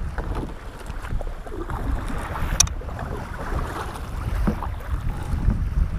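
Wind rumbling on the microphone aboard a fishing kayak, with water splashing around the hull and paddle. One sharp knock comes about two and a half seconds in.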